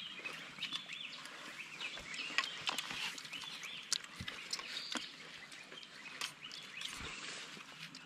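Scattered sharp clinks and taps of spoons against plates and metal bowls during a meal, over a background of chirping birds.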